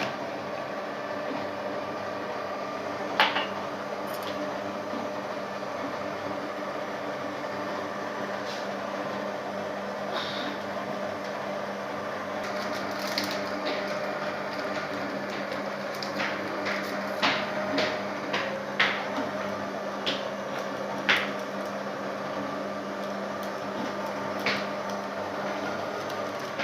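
Electric kitchen mixer motor running steadily while it mixes cake batter. Scattered light taps and knocks from flour being sifted, mostly in a cluster in the second half.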